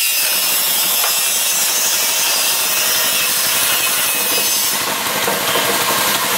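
New 200cc single-cylinder engine running steadily just after catching on its first pull-start, a loud, dense mechanical clatter that comes in abruptly.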